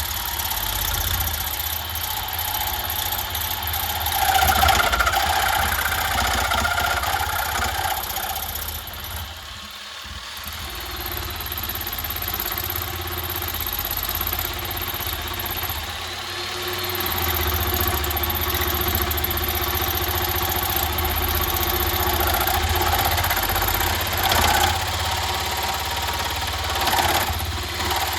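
An electric grinder running steadily while a steel knife blade is ground against it to put on the edge, with a harsher grinding patch about four to eight seconds in. The machine eases off briefly about ten seconds in.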